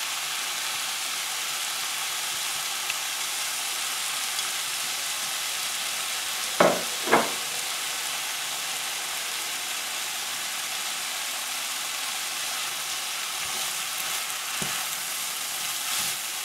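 Ground beef and diced vegetables sizzling steadily in a frying pan, with two sharp knocks in quick succession about halfway through and a few light scraping clicks as stirring starts near the end.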